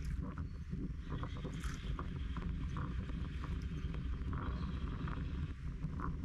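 Waterfront ambience: a steady low rumble with scattered short, high chirps and clicks over it.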